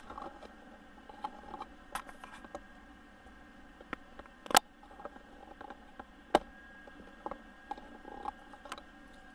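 Camcorder handling noise: scattered small clicks and knocks, with a few short faint whirs as the camera zooms in. Two sharper clicks stand out, about halfway through and about two-thirds of the way through.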